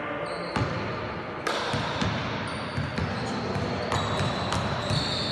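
Basketball bouncing on a hard indoor court floor, a few separate bounces spaced irregularly.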